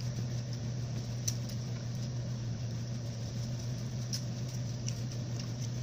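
A steady low machine hum, with a few faint clicks.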